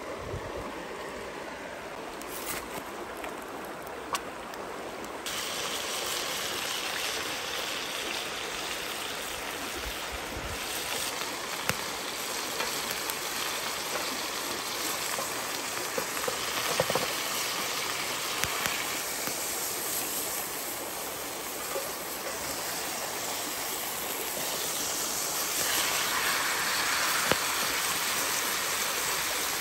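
Shallow stream running over rocks, a steady rushing; from about five seconds in, pork sizzles in a cast-iron pan over a wood fire, with a few clicks of spatulas against the pan.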